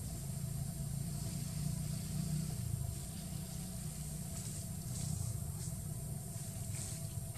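Outdoor background: a steady low rumble under a faint high hiss, with a few faint short ticks in the second half.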